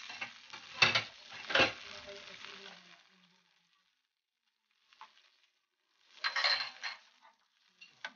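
Canned tuna in oil sizzling in butter in a frying pan, with a wooden spatula stirring and knocking twice against the pan about a second in. The sizzle dies away after about three seconds, leaving short bursts of stirring.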